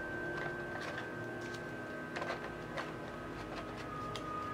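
Faint clicks and light rustles of a stack of game cards being picked up out of a cardboard game box and handled, a few separate taps. Under them is a faint steady drone that shifts pitch near the end.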